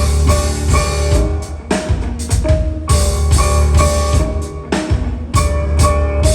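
Instrumental band music: a drum kit playing over a heavy bass line, with short repeated melodic notes above.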